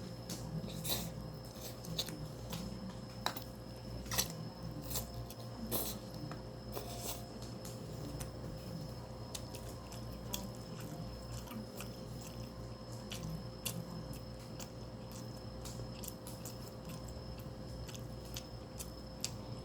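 A person eating close to the microphone: wet chewing and mouth sounds of kimchi fried rice with egg, with scattered small clicks, over a steady low hum.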